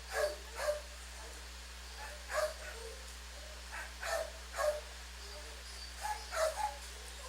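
A dog barking in short barks, in groups of two or three about every two seconds, over a steady low hum.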